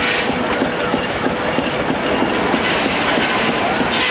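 Flat-belt-driven machinery running, its belts, pulleys and shafting making a steady clattering rattle.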